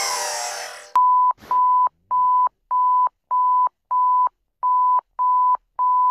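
Simulated emergency alert tone: a string of short, evenly spaced electronic beeps on one high pitch, a little under two a second, with a short pause after the sixth beep. Electronic music fades out just before the beeps begin.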